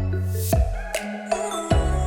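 Electronic background music with deep sustained bass notes and a regular beat.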